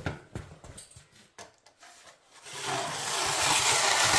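Faint rubs and knocks, then about two and a half seconds in a power drill with a mixing paddle starts up loud and steady, whirring through floor patch compound in a bucket.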